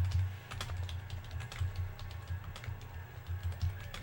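Typing on a computer keyboard: a quick, irregular run of clicking keystrokes with dull low thumps underneath.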